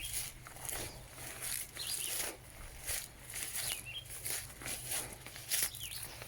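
Footsteps on a soft, wet, mucky trail, about two steps a second. A bird repeats a short chirping call about every two seconds.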